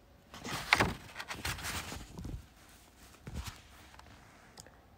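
Paper rustling and soft knocks as a picture book's pages are turned and handled, for about two seconds, followed by one more soft knock.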